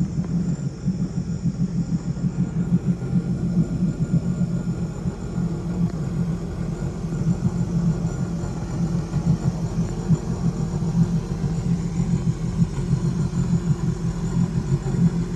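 Boat engine idling at low speed, a steady low rumble with a fast flutter.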